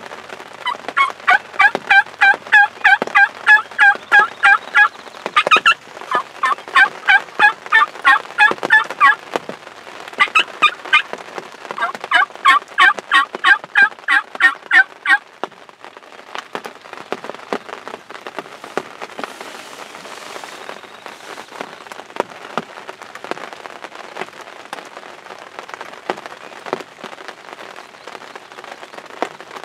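Wild turkey yelping: long runs of rapid, loud yelps, about four or five a second, in four bouts over the first fifteen seconds. After that, rain pattering on the fabric of a hunting blind.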